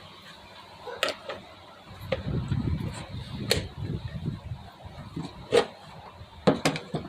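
Band saw blade covers being handled and slid back into place on the saw: a few sharp clicks and knocks, with a quick cluster near the end, over low rubbing handling noise.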